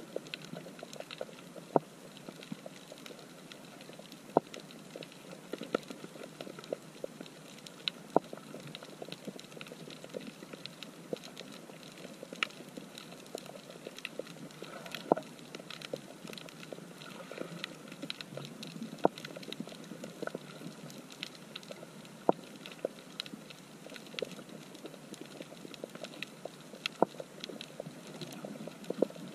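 Underwater coral reef soundscape heard through a camera housing: a dense, irregular crackle of snapping shrimp over a steady hiss, with a louder sharp click every few seconds.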